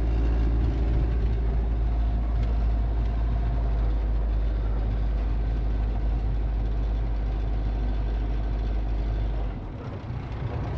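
Engine and road noise heard inside a truck's cab: a steady deep rumble with a hum above it, and the deep part drops off near the end.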